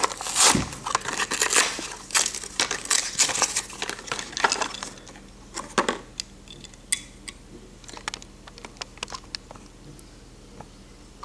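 Cardboard backing being peeled and torn off a plastic blister pack, a dense crinkling and crackling for the first few seconds. Then scattered light clicks and taps as the wooden toy engine is freed and handled, and set down on a marble tabletop near the end.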